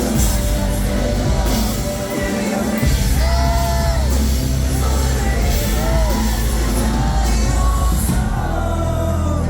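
Rock band playing live, loud and full, with a singer's voice coming in about three seconds in.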